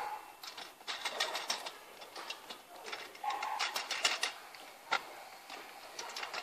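Small metal clicks and clinks in short runs as nuts and a threaded adjustable leg are fitted and turned by hand on a shower tray's metal support frame, with one sharper click about five seconds in.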